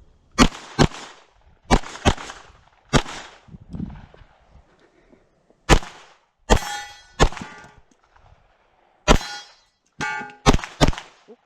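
Pistol fire during an IDPA stage: about a dozen shots, mostly in quick pairs, with pauses between strings. Several shots are followed by a metallic ringing, typical of hits on steel targets.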